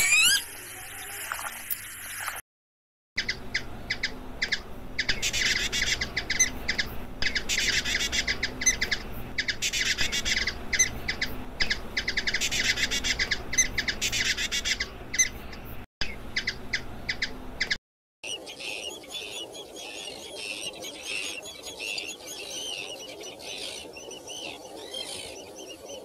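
A sequence of bird calls. It opens with a northern lapwing's rising 'pee-wit' call. After a short break come hummingbirds' rapid high chittering and squeaks around a feeder, and after a second short break another run of high chirping calls.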